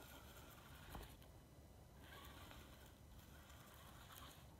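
Near silence: faint outdoor room tone, with one soft tap about a second in.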